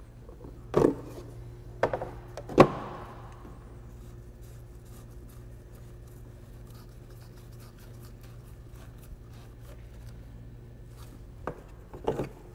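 Coolant pressure tester kit being handled, its hard plastic case and parts knocking and clattering: three sharp knocks in the first three seconds and two more near the end, over a low steady hum.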